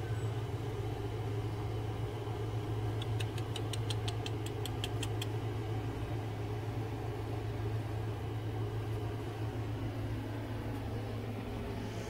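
Steady low mechanical hum, like a motor or engine running without a break. About three seconds in comes a quick run of about a dozen high, sharp chirps, roughly six a second for two seconds.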